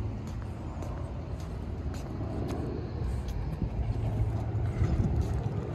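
Low, steady rumble of road traffic, a little stronger about four seconds in, with a few faint ticks.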